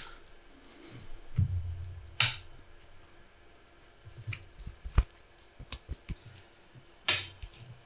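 Trading cards and counters being handled on a tabletop: scattered sharp taps and clicks, a cluster of them near the middle, with a short low bump early on.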